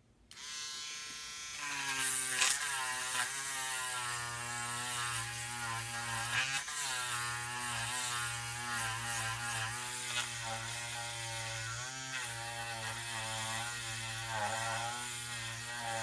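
Small handheld electric rotary tool whining as it sands the wooden hull of a model ship. The whine starts just after the beginning and dips in pitch now and then.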